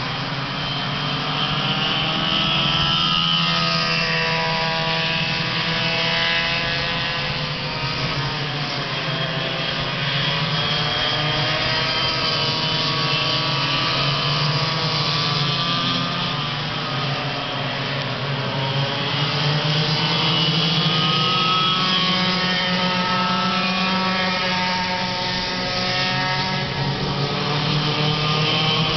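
Several go-kart engines running together in a race, their overlapping pitches rising and falling as the karts speed up and slow down.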